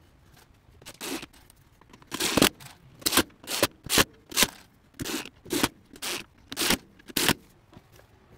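A series of about a dozen short scraping strokes on wood, roughly two a second, stopping about a second before the end.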